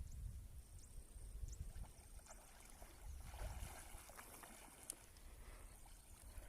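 Low wind rumble on the microphone, with faint high chirps repeating about once a second. About three seconds in comes a short spell of light water splashing.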